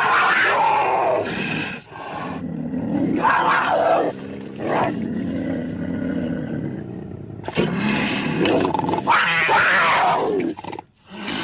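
Cougar (puma) growling and snarling in a series of rough calls: a long one at the start, two or three short ones in the middle, a long one about two-thirds of the way through and a short one near the end.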